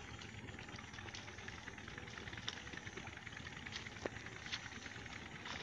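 Faint room tone: a low steady hiss with a few faint clicks.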